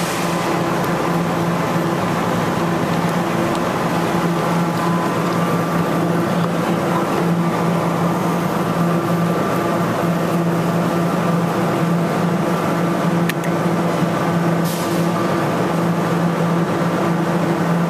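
Sega UFO Catcher claw machine running: a steady low hum over a whirring noise, with one sharp click about thirteen seconds in and a brief hiss a second or so later.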